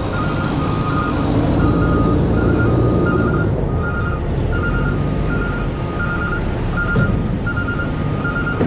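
A reversing alarm beeps in a steady, even rhythm of about one and a half beeps a second, over the low rumble of a running engine.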